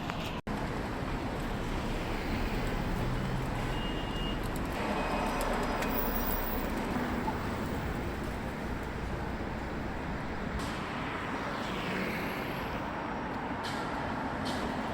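Steady traffic noise on a city street, with vehicles passing.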